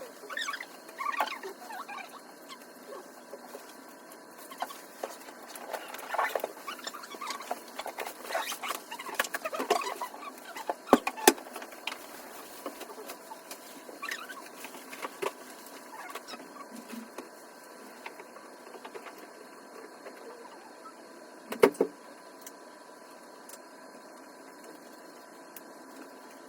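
Café ambience: scattered small clinks and clicks of cups and dishes over a faint steady hum, busier in the first half, with a few sharper knocks about eleven and twenty-two seconds in.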